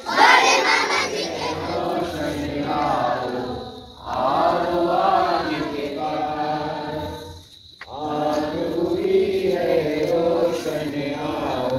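A group of children singing together in unison in three long phrases, with short breaks about four and eight seconds in.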